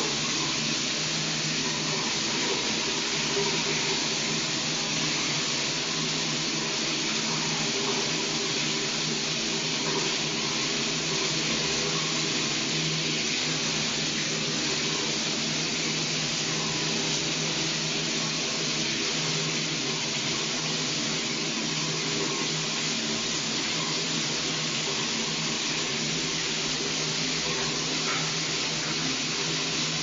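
Shower running: a steady, unbroken spray of water falling, an even hiss that does not change.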